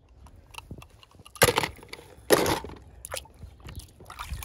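A toy car dunked into a plastic tub of water: two loud splashes about a second apart, with lighter sloshing and a few small clicks around them.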